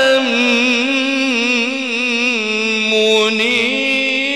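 A male qari's voice in tilawah-style Quran recitation, holding one long ornamented melisma. The note wavers up and down without a break, shifting to a lower turn about three seconds in.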